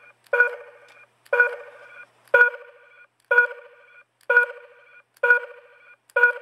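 Scooter turn-signal sound module beeping through a car reversing-alarm speaker, set off by a push button about once a second: seven short electronic beeps, each starting with a click and fading quickly.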